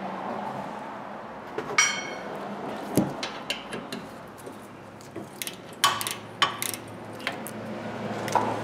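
Metal clinks and knocks as the rear brake caliper mounting bracket bolts and their small washers are worked out by hand and the bracket is handled: one clink that rings briefly about two seconds in, then scattered clicks, several close together near the six-to-seven-second mark, over a low steady hum.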